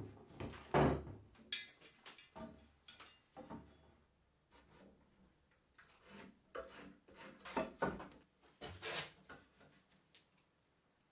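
Handling noises at a workbench: pine timbers knocked onto the bench and a metal rafter square set and slid against the wood, a string of irregular knocks and scrapes, loudest about a second in and near the end.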